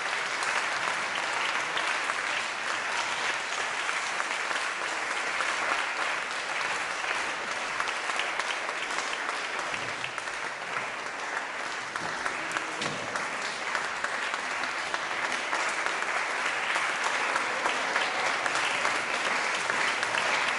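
A large audience applauding steadily in a dense, sustained ovation. It dips slightly about halfway through, then swells again.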